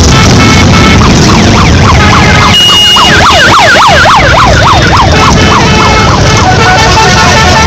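Harley-Davidson V-twin motorcycle engines rumbling as the bikes pass close by, with an electronic siren warbling in a fast rising-and-falling yelp for a few seconds in the middle.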